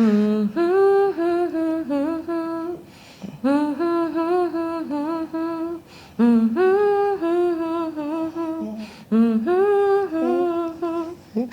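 A woman humming a wordless tune, in four short phrases of held and gliding notes with brief pauses between them.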